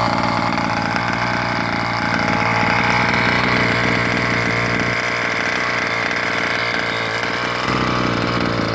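A 1/5 scale petrol RC car's small two-stroke engine running steadily, just after being pull-started.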